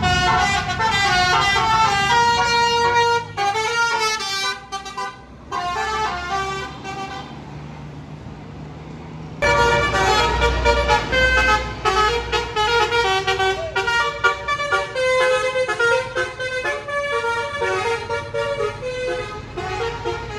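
Bus basuri horns, multi-trumpet 'telolet' air horns, playing a tune in stepping notes. The tune stops for about three seconds a little past the six-second mark, leaving a low engine rumble, then resumes with heavy engine rumble and plays on.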